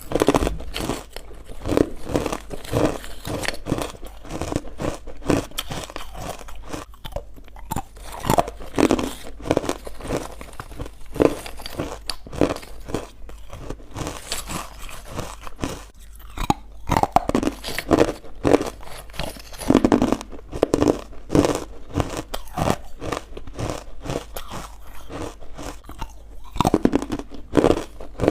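Close-miked chewing of crunchy, powdery carbonated ice bites (small ice nuggets): fast, irregular crunching and crackling, with louder bursts of bites every second or two.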